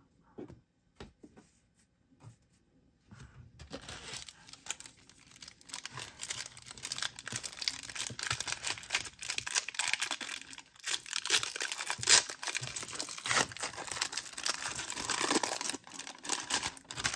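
A foil card-pack wrapper being torn open and crinkled by hand, a dense crackle of sharp rustles that starts a few seconds in and goes on unevenly.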